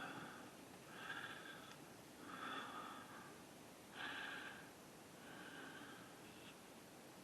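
Faint, soft breathing close to the microphone: a series of short breaths, about one every second and a half.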